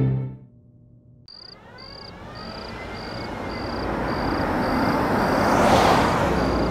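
A car driving slowly past, its engine and tyres rising to a peak about six seconds in. Under it a cricket chirps steadily about twice a second. Music fades out in the first half second.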